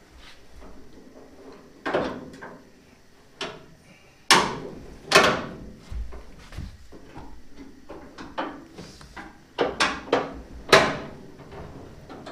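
Clunks and knocks from the steel tailgate of a 1977 Chevrolet C10 pickup being handled, pressed on and lifted. There are a dozen or so sharp knocks, the loudest about four, five and eleven seconds in.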